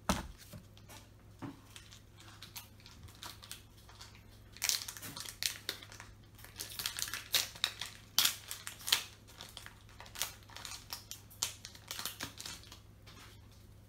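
Foil trading-card booster pack wrapper crinkling and crackling as it is torn open, a run of sharp crackles from about four seconds in until near the end, loudest around the middle.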